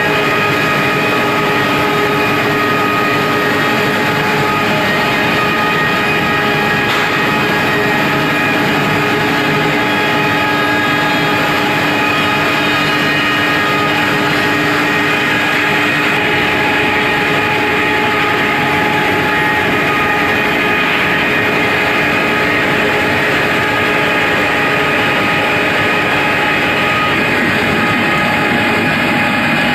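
Wood pellet production line machinery running steadily under load while processing sawdust and straw, a continuous industrial din with several constant whining tones over a dense hiss.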